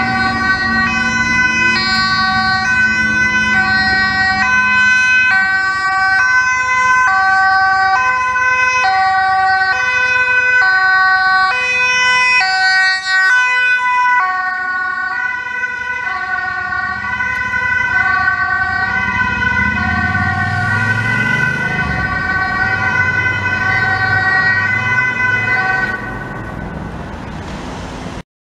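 Ambulance two-tone sirens from two ambulances, high and low notes alternating and overlapping. About twenty seconds in, a low engine rumble rises as one passes close, and the sirens grow quieter near the end.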